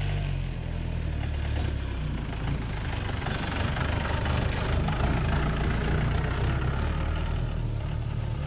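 Jeep engine running as the jeep drives slowly along a dirt forest track, passes close by and pulls away, loudest around the middle as it goes past.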